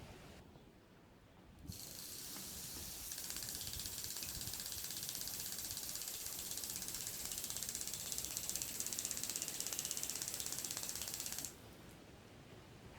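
Garden water sprinkler spraying: a steady hiss of water with a fast, even rattle. It starts about two seconds in and cuts off sharply about eleven and a half seconds in, as the electric water valve shuts off the flow.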